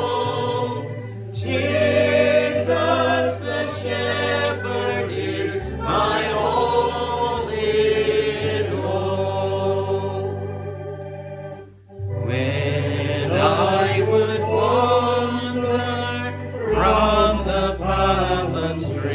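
A congregation singing a hymn over held low instrumental bass notes, with a short break between lines about twelve seconds in.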